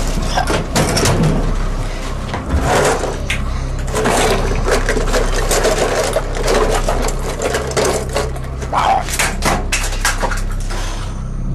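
Objects clattering and knocking as kitchen drawers and cupboards are rummaged through in a hurried search, with a steady low hum underneath.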